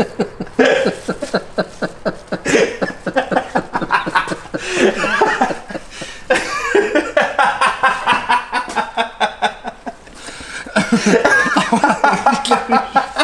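People laughing hard in repeated fits, with a short lull about two-thirds of the way through.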